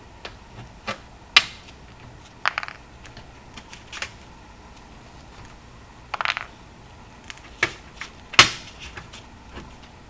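Screwdriver prying metal staples off the steel wire frame of a baguette baking tray to free its stainless steel mesh: irregular sharp metallic clicks and snaps with a few short rattling bursts, the loudest about eight seconds in.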